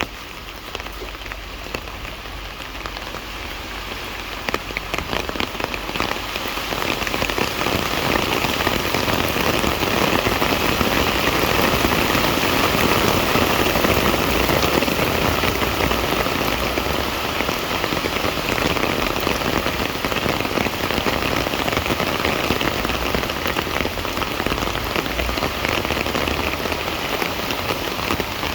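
Rain falling steadily, getting heavier about six seconds in and staying heavy.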